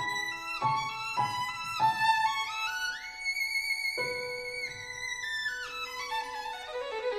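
Background music led by a violin, playing a melody with gliding notes and one long held note about three seconds in.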